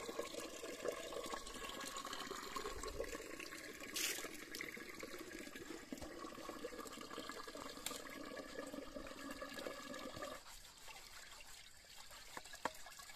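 Spring water pouring from a spout and splashing into a steel pot and onto wet stone while cookware is washed under it, with a sharp click about four seconds in; the splashing gets quieter near the end.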